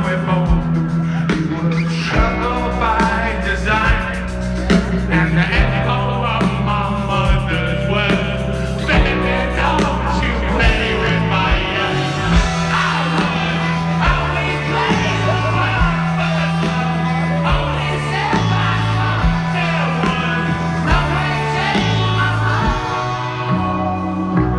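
Live rock band playing loudly through the festival PA, with a lead singer, a bass line stepping from note to note and guitars, heard from within the crowd.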